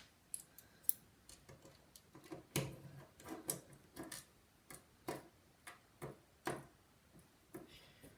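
Faint, irregular small clicks and ticks, about one or two a second, of a precision screwdriver working out a tiny screw from an iPhone 5's logic board.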